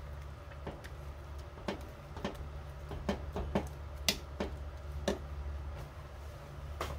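Metal ladle stirring chunks of meat and vegetables in a metal pot, clinking and scraping against the pot about ten times at an irregular pace, the loudest knock about four seconds in, over a steady low hum.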